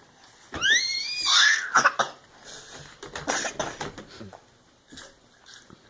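Trace growling: a high cry that rises and falls, running into a raspy growl, then a second, quieter raspy growl a couple of seconds later.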